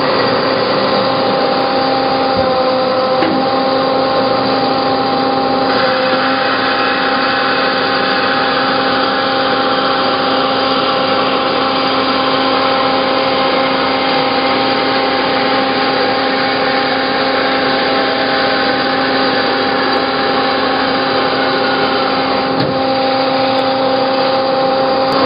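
Hyd-Mech H-16 automatic horizontal bandsaw running through a cut in bar stock: a steady machine hum with several held tones under a dense hiss from the blade, the hiss easing slightly about six seconds in.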